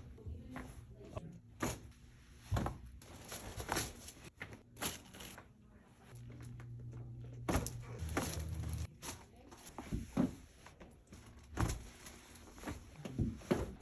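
Chiropractic adjustments: a string of sharp cracks and knocks, about one every second or two, with a low steady hum for a few seconds in the middle.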